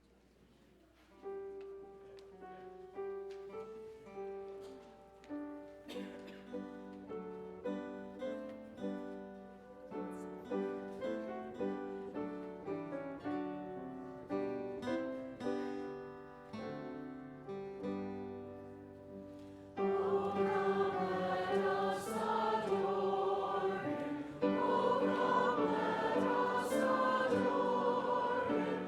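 Piano playing a slow hymn introduction, each note struck and fading; about twenty seconds in, the congregation and choir come in singing with it, noticeably louder.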